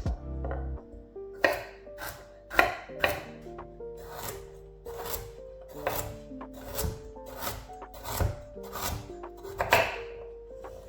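Kitchen knife chopping food on a cutting board, sharp strokes about twice a second starting about a second and a half in, over soft background music.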